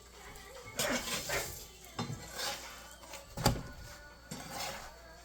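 Metal utensil scraping and clinking against a hot griddle while a paratha cooks, in several short scrapes with one sharp knock about three and a half seconds in.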